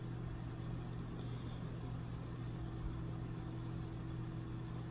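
A steady low electrical hum over a faint hiss.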